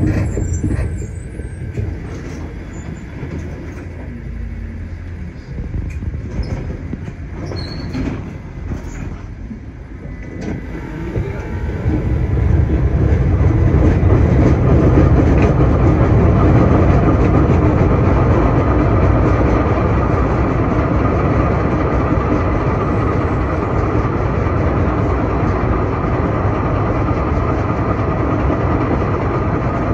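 Tram running, heard from inside the car as a steady rolling noise. About eleven seconds in it grows louder and stays loud.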